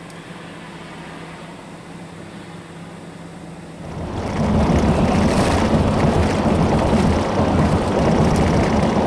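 A quiet steady hum, then about four seconds in a loud, low rushing noise sets in and holds: wind buffeting the microphone.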